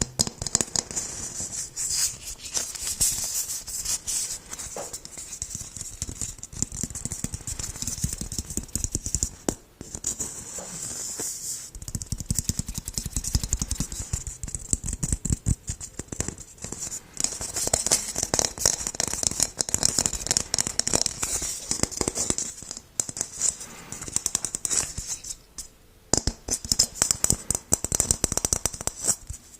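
Close-miked ASMR trigger sounds: a dense, rapid stream of crisp clicking and rattling, like small hard bits being shaken or scratched, with short breaks about ten seconds in and again near the end.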